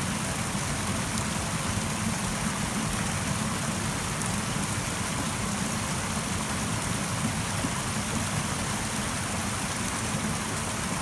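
Steady rain falling outdoors, with a low rumble underneath.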